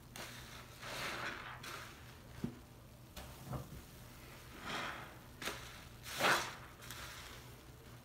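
Hands sloshing and swishing through foamy bath water in a tub, in a series of short wet swells, the loudest about six seconds in.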